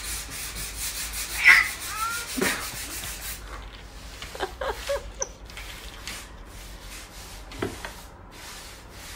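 A cat's claws scraping and rubbing against a painted wall: a series of rasping scratches as it paws at the wall.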